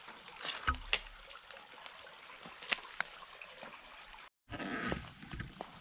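Shallow creek water trickling as hikers wade across on stones, with scattered sharp clicks of trekking poles and boots on wet rock. The sound cuts out briefly a little over four seconds in.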